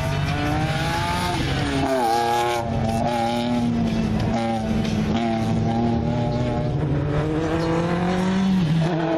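BMW Z4 coupé race car's engine working hard through a slalom, its pitch climbing under acceleration and dropping sharply as the driver lifts or shifts, several times over.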